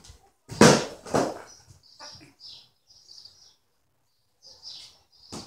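A soft rubber play ball, short of air, being tossed and bounced: two loud thuds about half a second apart near the start, then fainter knocks. Faint high chirps are heard in the background.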